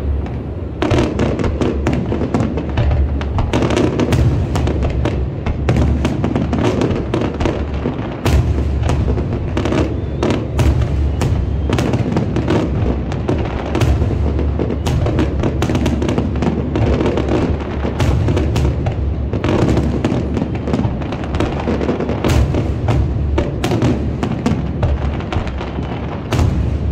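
Fireworks display: aerial shells bursting one after another in a dense, unbroken barrage of booms and crackles.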